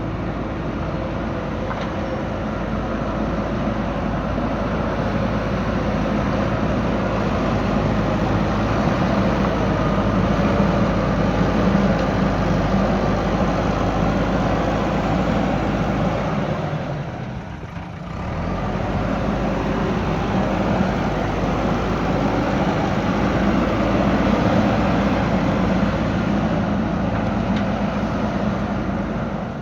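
Diesel engine of a JCB backhoe loader running steadily as the machine works, dipping briefly a little over halfway through and then picking up again.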